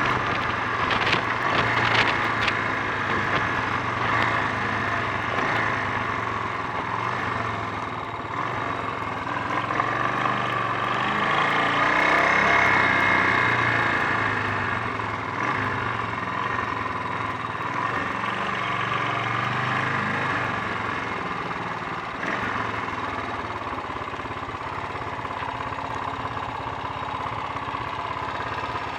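Honda XL 350 single-cylinder four-stroke engine running on the move, with wind noise. The engine note swells about midway, then eases off. The bike has a misfire and bogs down under acceleration.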